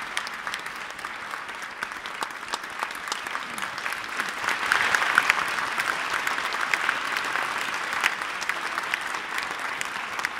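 Audience applauding: a dense patter of clapping that swells about halfway through, then eases slightly.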